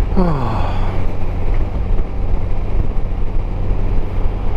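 Honda Gold Wing motorcycle cruising at steady speed: a constant engine hum under steady wind and road noise. A man says a brief falling "oh" at the start.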